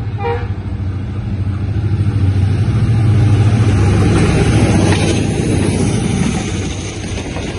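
Pakistan Railways ZCU-30 diesel-electric locomotive running through a station at speed with a passenger train: a deep engine drone with the rushing of wheels on rail, building as it approaches and loudest as the locomotive passes about three to five seconds in. A short horn toot right at the start.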